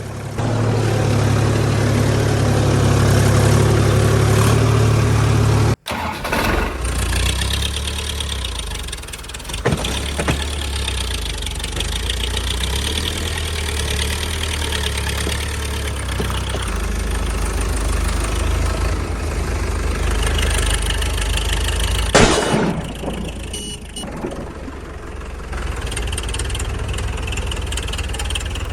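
Vehicle engine sounds, running steadily and shifting in level, with an abrupt cut about six seconds in and another change a little past twenty seconds.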